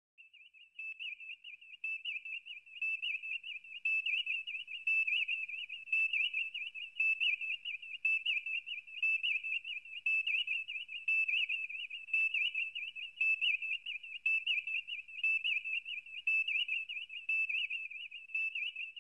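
A continuous high whistle-like tone that wavers quickly in pitch and loudness, with a faint fade-in at the start.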